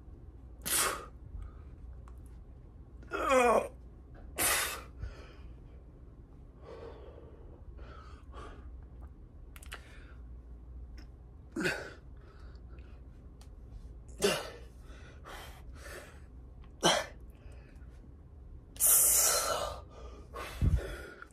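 A man's sharp, forceful exhalations and grunts of effort while curling dumbbells, coming every few seconds. One breath about three seconds in is voiced like a groan, and a longer hissing breath comes near the end.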